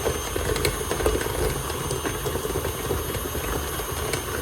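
Electric mixer running steadily, beating cookie dough in a bowl, with light irregular clicks over the motor noise.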